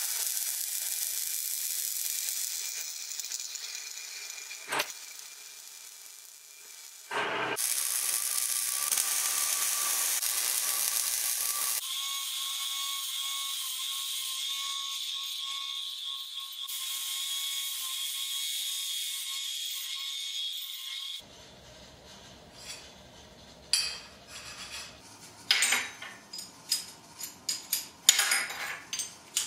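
MIG welder crackling and hissing, fading out over the first several seconds. After a short steady hiss, an angle grinder with a cutting disc cuts steel for about nine seconds, a steady high whine over grinding noise. Near the end, steel sockets and steel pieces clink and knock on a steel welding table.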